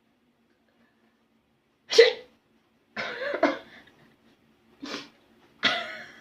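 A person sneezing repeatedly: four sharp bursts, the first about two seconds in and the loudest, the second longer and more voiced, and two more near the end.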